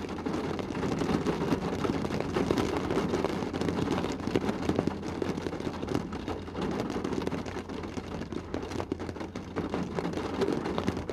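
Heavy rain shower drumming on a car's roof and windows, a dense steady patter heard from inside the cabin.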